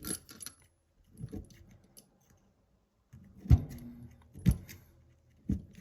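Steel Darby handcuffs clinking and rattling as they are handled, with a handful of sharp metallic knocks separated by quiet gaps.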